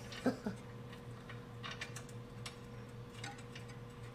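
Faint, irregular light metallic clicks and ticks of hand tools on the front lower ball joint hardware of a car, over a steady low hum.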